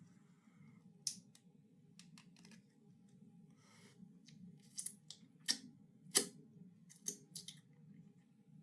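A takeout container of pikliz (Haitian pickled vegetables) being pried open by hand: a series of sharp, irregular clicks and crackles from the lid, loudest a little past the middle.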